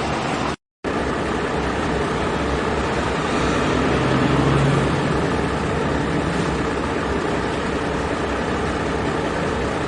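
Heavy diesel engine of an excavator running steadily, with a brief swell in level about halfway through. The sound cuts out completely for a moment just after the start.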